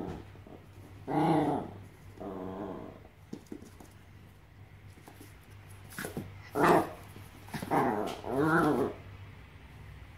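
A dog play-growling in four drawn-out bursts during a standoff over a stuffed toy, with one short, loud bark a little past the middle.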